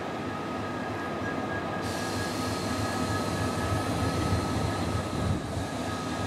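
RL-class diesel locomotives approaching at low speed: a deep engine rumble that grows a little louder, with a steady high whine over it. A hiss comes in about two seconds in.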